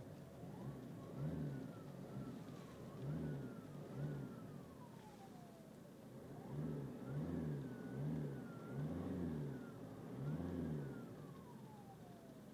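Alfa Romeo GT's turbocharged engine revved in a series of about eight short blips. A whistle from the turbo rises with each blip and glides down slowly as the revs drop. The owner wonders whether this turbo whistle is abnormal.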